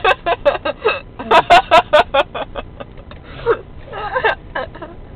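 A man laughing hard in quick, rapid bursts, in two runs with a short break, over the steady road noise of a moving car's cabin.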